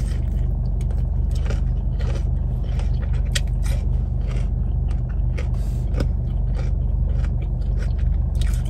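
Close-up mouth sounds of someone biting into and chewing a fried breaded sandwich: many short, irregular clicks and wet smacks. Underneath is the steady low hum of the car's engine idling.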